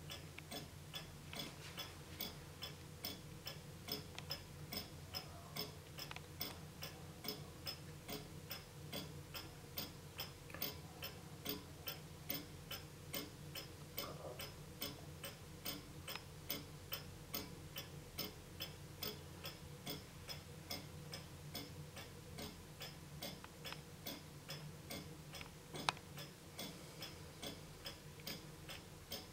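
J&A Jump 8-inch fusee drop-dial wall regulator of about 1850, its half-deadbeat escapement ticking steadily and evenly. One single sharper click stands out near the end.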